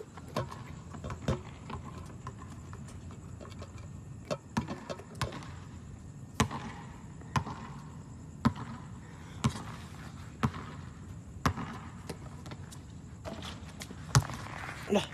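A basketball bouncing on a hard court, a sharp thud about once a second for much of the stretch, with a few irregular knocks at first.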